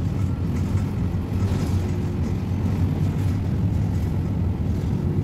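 Steady low rumble of a bus's engine and tyres at highway speed, heard from inside the passenger cabin.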